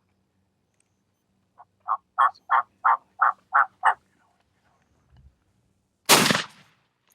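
A wild turkey series of seven yelps, about three a second, followed about two seconds later by a single loud shotgun blast that drops the gobbler.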